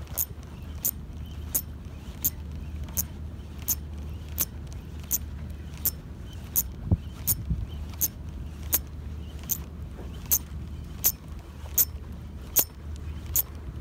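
Spinning fishing reel ticking steadily as the line is cranked in, a crisp metallic click about every three-quarters of a second, over a steady low rumble.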